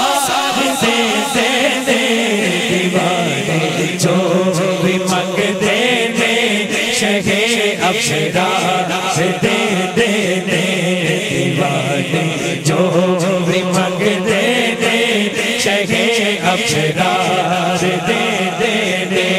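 A naat being sung by a male voice in long, wavering melodic lines with a chant-like sound.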